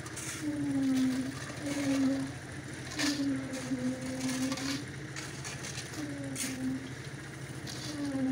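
Shovels and steel basins scraping and crunching into a pile of crushed stone chips, in irregular strokes, over a steady engine hum whose pitch sags and recovers about once a second.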